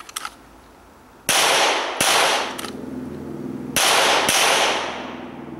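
Four loud 9mm pistol shots fired in two quick pairs, each shot ringing out with a short echo, with a fainter sharp crack between the pairs.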